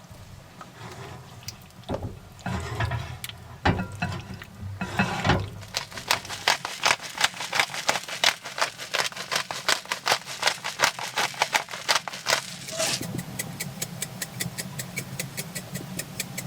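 Spoon scraping and clinking against a pot while stirring a thickened sauce: a few irregular scuffs, then from about six seconds in quick regular clicks, about four a second.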